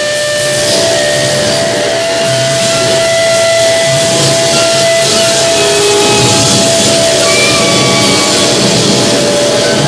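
Loud live noise music: a drum kit and cymbals played hard under a dense wash of hissing electronic noise, with long held whistling tones running through it.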